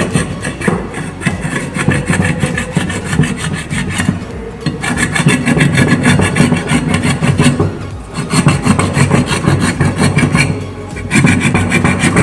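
A flat metal file rasping in rapid back-and-forth strokes over an 8-inch woofer's metal core, with a few brief pauses. It is roughening and cleaning the metal so the Fevicol glue for the new surround will grip.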